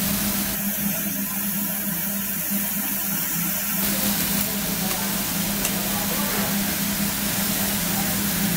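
Thin-sliced beef sizzling on a gas-fired tabletop Korean barbecue grill: a steady hiss over a constant low hum.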